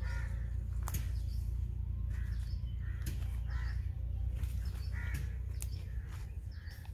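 Crows cawing repeatedly, short calls every half second to a second, over a steady low rumble on the microphone and occasional clicks and rustles of plants being pushed through.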